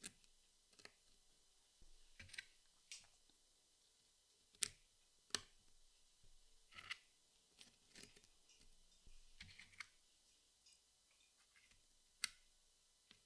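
Jigsaw puzzle pieces being handled and pressed into place: faint, scattered clicks and taps at irregular intervals, a few of them sharper and louder.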